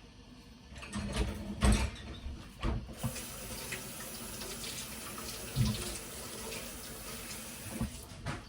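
A few clunks, then a kitchen tap is turned on and runs into the sink for about five seconds before being shut off.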